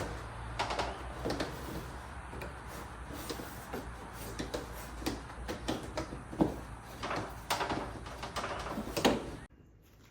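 Irregular knocks, clicks and rustling from hands working with cable and tools, over a steady low hum; it all stops abruptly near the end.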